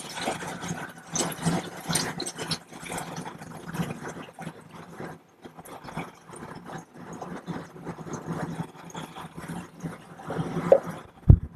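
Used xylene pouring from a plastic reagent container into a funnel on a plastic waste carboy: an uneven, splashing and gurgling stream, with a low knock of plastic near the end.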